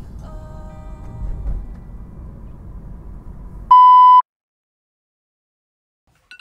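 Low rumbling background noise, then a single loud electronic beep, one steady tone about half a second long, a little under four seconds in. It cuts off sharply into silence.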